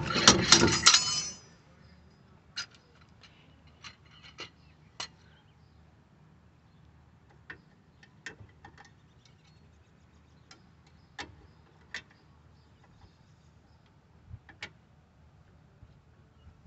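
Irregular sharp metallic clicks and taps, about fifteen of them, from hand tools and parts being handled during brake work on a car, after a brief loud clatter at the start.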